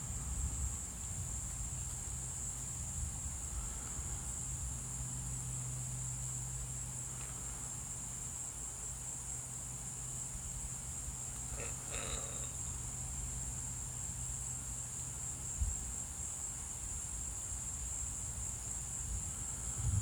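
Night insects, likely crickets, chirping in a steady high-pitched chorus, with a low steady hum underneath for most of it.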